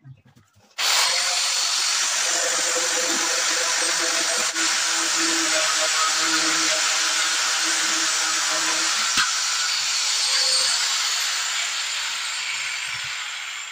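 Handheld power tool spinning a 22 mm diamond core bit in wet granite, switched on about a second in and running steadily with a high whine, easing off toward the end. A single sharp click is heard about nine seconds in.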